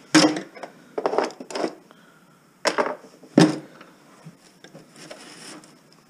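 Screwdrivers and other metal hand tools clattering as they are picked up and set down: five short bursts of clatter over the first three and a half seconds, then faint rustling.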